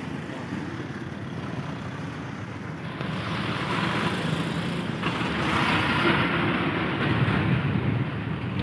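Road traffic going by on a busy road, with wind on the microphone; it grows louder about three seconds in and swells again a little later as vehicles pass.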